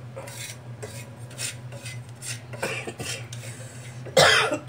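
Wooden spatula stirring and scraping dry-roasting spices and seeds around a pan, in repeated short dry scrapes about three a second. A much louder burst comes near the end.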